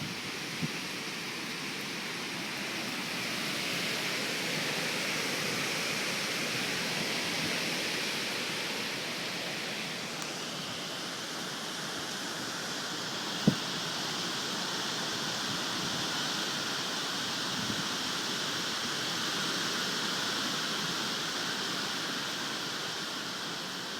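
Steady rushing of hurricane rain and wind, swelling and easing slowly. A single sharp knock about halfway through is the loudest moment.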